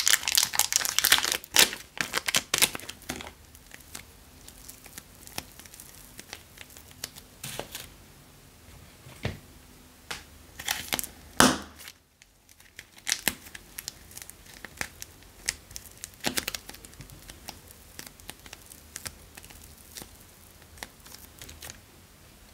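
Thin plastic wrapping crinkling and tearing as it is peeled off blocks of soft clay. The crackling is dense and loud for the first few seconds, then thins out to scattered crackles.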